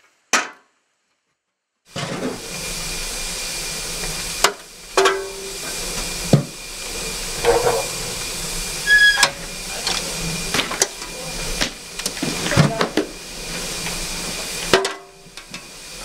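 Wood-fired steam boiler hissing and rushing steadily, fire in the firebox and escaping steam, starting about two seconds in. Scattered knocks and scrapes of a shovel feeding sawdust into the firebox run through it.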